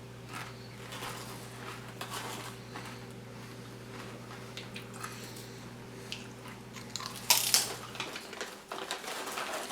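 Someone eating crisp potato chips: crunching and chewing, with a louder crunch or crackle about seven seconds in. A low steady hum underneath stops about eight seconds in.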